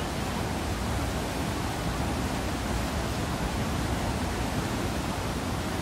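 The Spiti River rushing in spate over rapids: a steady, unbroken noise of white water.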